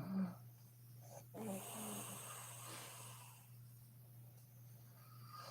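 A woman snoring in her sleep: a short snore right at the start and another about a second and a half in, then softer breathing. A steady low hum runs underneath.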